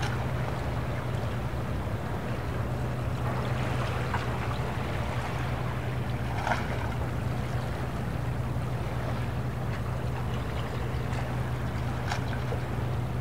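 Sea-port ambience: a boat's engine running with a steady low hum over an even wash of water noise, with a few brief sharp sounds, the clearest about halfway through.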